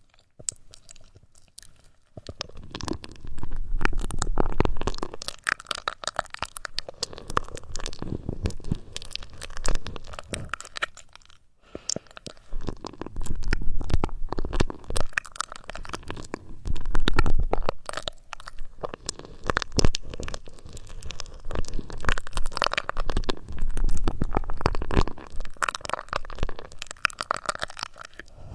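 Close-miked ASMR trigger sounds: crackly rubbing and scratching right on the microphone, with low rumbling swells that come and go every few seconds.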